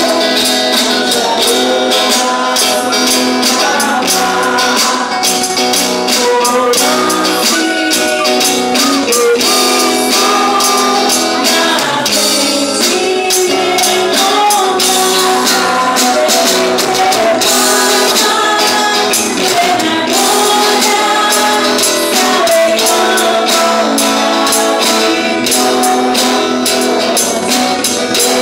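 Church worship music: voices singing a worship song together, with a tambourine jingling in a steady rhythm and a small guitar strumming along.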